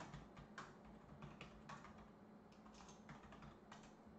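Computer keyboard being typed on: a faint run of about a dozen separate key clicks at an uneven pace as a short command is entered.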